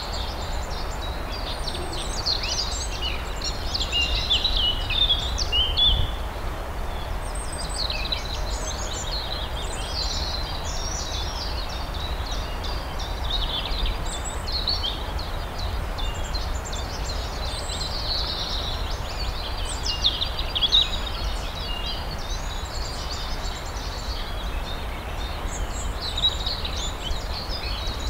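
Several songbirds singing and chirping in short overlapping phrases, over a steady low rumble.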